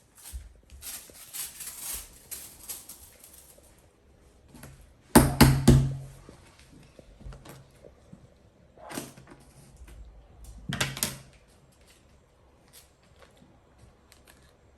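Rustling at first, then several knocks and thumps in three clusters, the loudest about five seconds in, as things are handled and put down on a hard surface.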